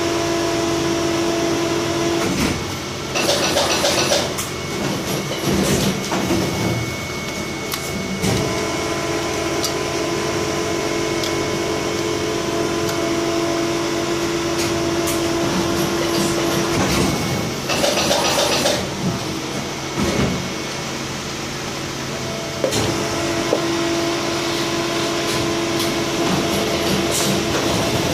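Steady machine hum from plastic injection moulding machinery, a drone with a few steady tones. It is broken twice by bursts of hissing, rattling noise, a few seconds in and again just past halfway, with scattered clicks.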